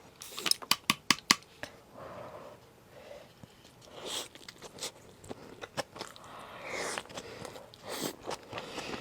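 A person eating sushi, biting and chewing with wet mouth sounds. There is a quick run of sharp clicks in the first second or so.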